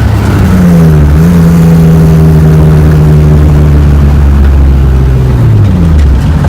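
BMW E36's engine running loud at a steady speed: its pitch dips slightly about a second in, holds steady, then drops away near the end.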